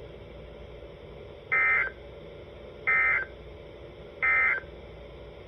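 NOAA Weather Radio EAS/SAME end-of-message data: three short, identical bursts of warbling digital tones, about 1.3 seconds apart, over faint steady radio hiss. They signal that the severe thunderstorm warning broadcast has ended.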